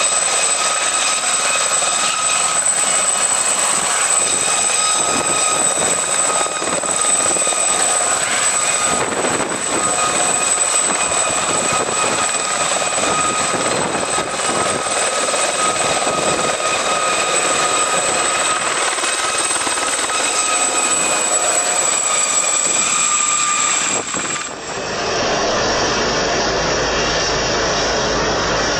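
Helicopter running, a steady loud rush with a constant high-pitched whine over it. About 24 seconds in it cuts off abruptly into a different, duller steady rushing noise.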